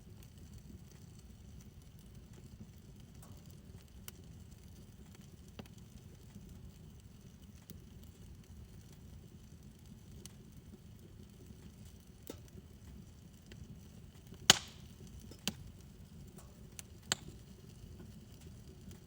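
Fire burning in a fire pit: a low steady rumble with sparse crackles. One sharp pop about three-quarters of the way through is the loudest, followed by two smaller snaps.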